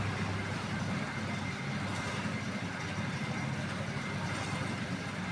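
Roll cutting machine for cardboard boxes running steadily, a continuous low mechanical drone with a faint high tone over it.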